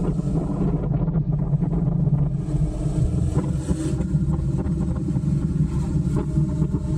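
Motorcycle engine running as the bike rides along at road speed, with wind noise over the mounted camera. The engine note changes a little about three seconds in.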